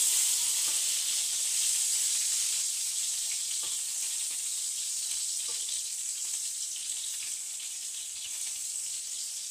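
Beef smash burger patties sizzling in a frying pan: a steady hiss that slowly dies down, with a few faint taps of a spatula in the pan.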